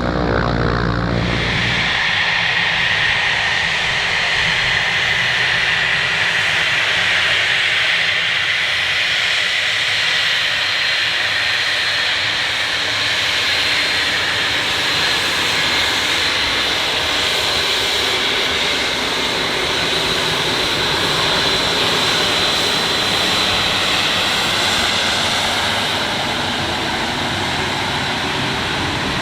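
Embraer Phenom 300 business jet's twin Pratt & Whitney turbofans running with a steady high-pitched whine over a rushing jet noise. A low engine drone cuts off about a second in.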